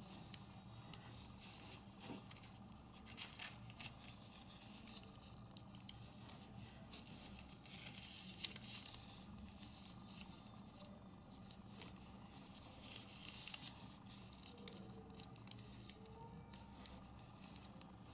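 A square sheet of origami paper being folded by hand, corners brought to the centre and creased flat, with rustling and crinkling of the paper that comes and goes.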